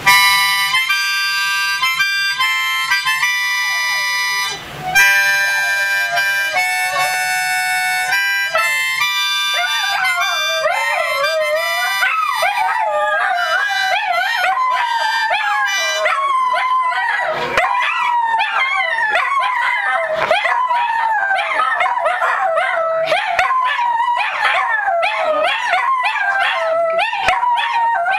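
A harmonica plays sustained chords. From about nine seconds in, dachshunds join with wavering, overlapping howls. The howling goes on after the harmonica fades out about halfway through.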